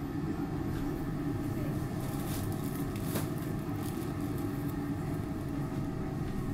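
Steady hum and rumble inside a SEPTA Market-Frankford Line el car standing at the platform with its doors closed, with a few faint clicks about two to three seconds in.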